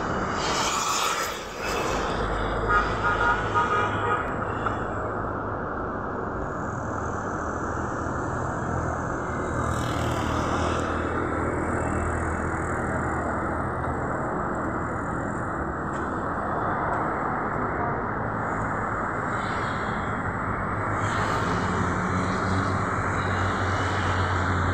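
Steady road traffic noise: an even rumble and hiss of passing vehicles, with a low engine hum underneath. A few short clicks come a couple of seconds in.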